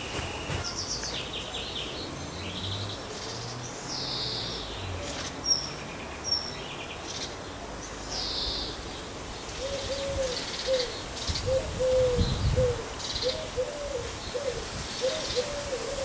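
Several garden birds singing, with high chirps and trills throughout. From about ten seconds in, a run of short, low, arched notes repeats about twice a second, and a brief low rumble comes around twelve seconds in.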